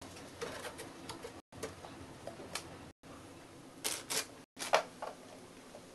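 Faint scratchy clicks and rustles of a hamster scurrying on a wooden floor and handling a biscuit, with a few louder rustles about two-thirds of the way in.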